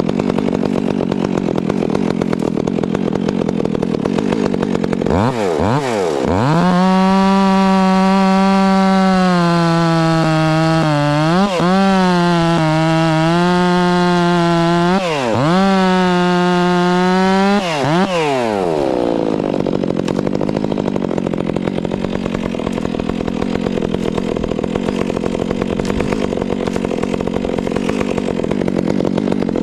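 Two-stroke chainsaw cutting wood, running hard throughout. A clear high-revving whine holds for about ten seconds in the middle, dipping sharply twice, then the engine note drops lower and rougher for the rest.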